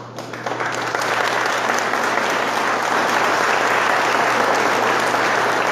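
A large crowd clapping, building up over the first second and then holding steady.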